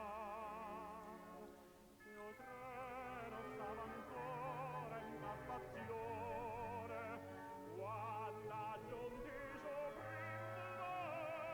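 Background music: a male tenor singing a Neapolitan song in operatic style, with vibrato, over a light accompaniment.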